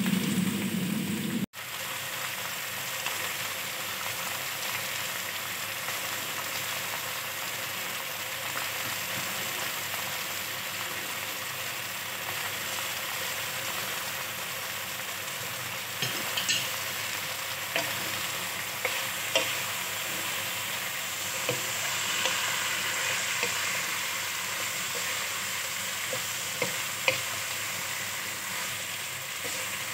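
Chicken pieces frying in a pan with lemongrass, chillies, tomato and onion, a steady sizzle. A low hum cuts off abruptly about a second and a half in. From about halfway, a wooden spatula stirring and scraping, with scattered clicks and knocks against the pan.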